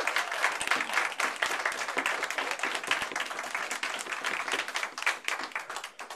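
Audience applauding, a dense patter of hand claps that thins out and grows quieter near the end.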